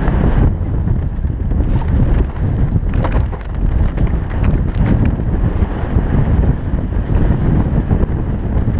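Wind buffeting a helmet-mounted GoPro's microphone on a fast downhill mountain bike descent, over the rumble of tyres on a dirt trail. Sharp rattles and clatter from the bike over rough, rocky ground come thickest about three to five seconds in.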